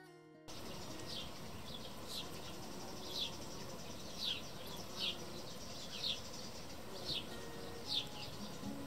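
A bird calling over and over, a short high chirp falling in pitch about once a second, over steady outdoor ambience.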